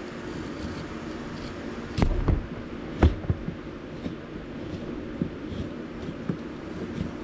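Hand chisel paring shavings off a driftwood wand blank: a few sharp knocks and scrapes, the loudest about two and three seconds in, with smaller clicks later, over a steady background hum.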